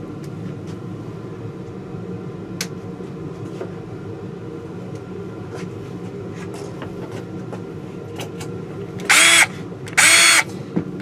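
Black & Decker LDX120C 20-volt cordless drill motor spun up in two short trigger pulls about nine and ten seconds in, each a brief steady whine. A steady low hum runs underneath.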